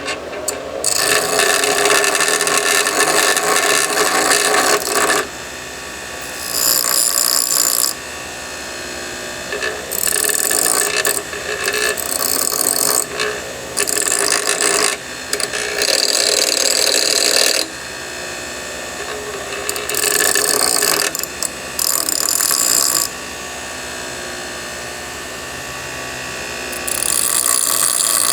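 Power grinder running, with a freshly cut metal piece pressed against the wheel in about nine separate passes of one to four seconds each to grind its end straight. Between passes the grinder keeps running at a lower, steady level.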